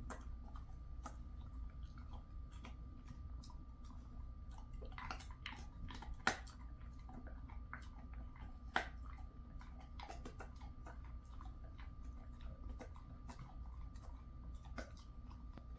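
Jindo dog chewing a treat: scattered small crunches and clicks of its teeth on the treat, with two sharper cracks about six and nine seconds in.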